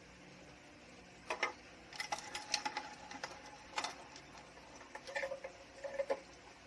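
Irregular light clicks and taps of a spoon and small seasoning containers, some with a brief ring, while seasonings are spooned into the fish marinade.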